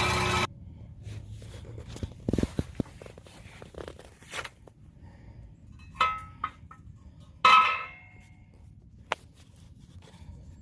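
Car engine running, cut off abruptly half a second in, then scattered knocks and metal clanks, with two loud ringing metallic clangs about six and seven and a half seconds in.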